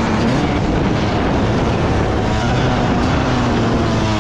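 Dirt bike engine running at a fairly steady speed while riding, its pitch holding nearly level with a slight waver, under heavy wind noise on the camera.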